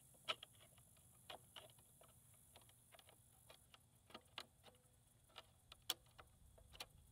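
Faint, irregular small clicks and taps of hands working on a portable bandsaw, seating the blade on its wheels and handling the metal and plastic parts and covers.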